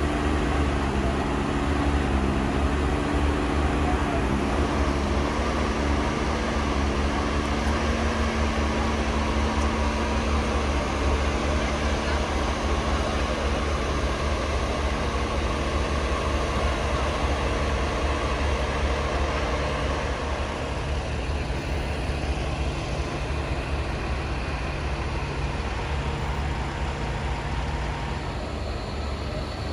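Heavy diesel truck engine running with a steady low drone as it slowly tows a house on a moving trailer, a little quieter after about twenty seconds.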